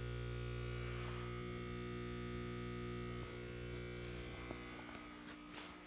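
Old transformer battery charger humming steadily under load while charging truck batteries at about 5 amps; the hum gets quieter over the second half.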